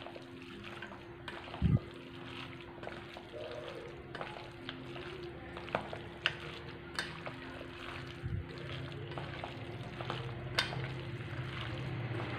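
Hand squishing and mixing raw chicken pieces in a wet spice paste in a stainless steel bowl, with scattered light clicks against the steel and one dull thump about two seconds in.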